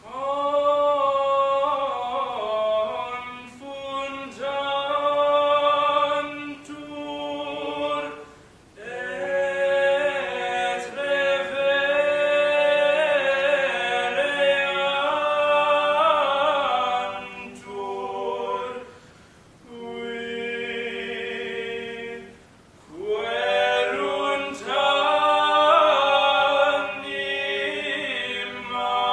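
Mixed choir of men and women singing a cappella, starting as a phrase begins and going on in several phrases with short breaths between them.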